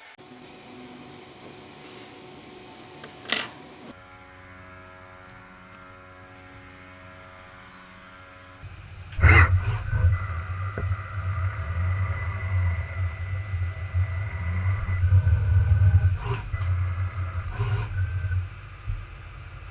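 Machine noise from a CNC machine cell: a steady high whine, then a lower steady hum, then from about nine seconds in a much louder, uneven low rumble with a steady whine over it, typical of the CNC machine running.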